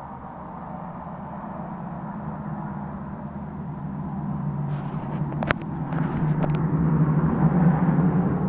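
Motor vehicle engine rumble, growing steadily louder, with a few sharp clicks in the second half.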